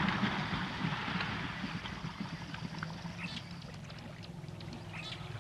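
Bushfire ambience: a rumbling hiss with crackles that fades down over the first couple of seconds. A few faint, short high crackles or chirps follow.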